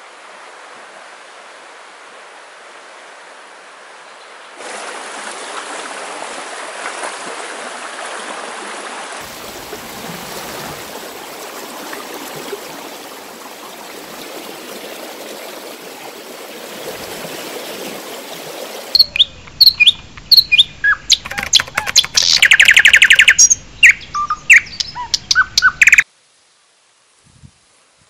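Steady rush of river water, then about seven seconds of loud bird chirps and calls with a fast trill in the middle, cutting off suddenly.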